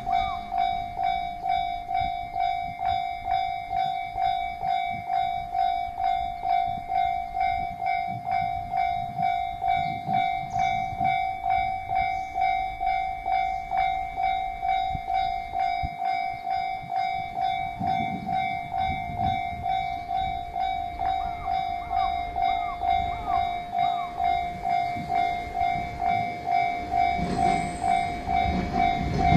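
Level crossing warning bell ringing steadily at about two strikes a second, the loudest sound throughout. Under it is the low rumble of a 1200 series diesel railcar train moving slowly over the crossing, swelling briefly about two-thirds of the way in and again near the end.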